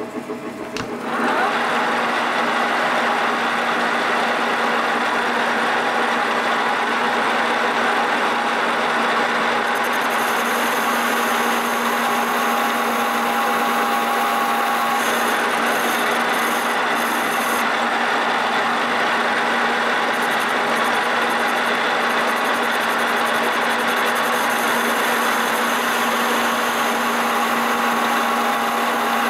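Metal lathe starting up about a second in after a click, then running steadily with a steady whine from its drive, while a tangential tool holder's right-hand cutting tool turns a metal bar.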